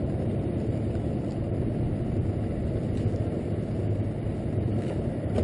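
Steady low rumble of a boat's outboard motor running at low speed, with an even hum throughout.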